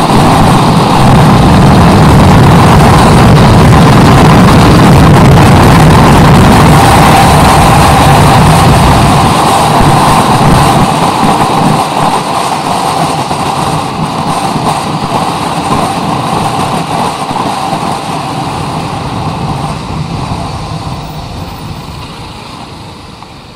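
Motorcycle running on the road, heard from a camera strapped to the rider's chest. It is loud at first, then gets gradually quieter over the second half.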